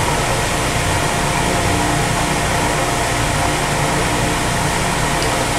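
Milling machine running steadily in back gear while its spindle drives a 1/4-20 tap into the arbor, a constant motor hum.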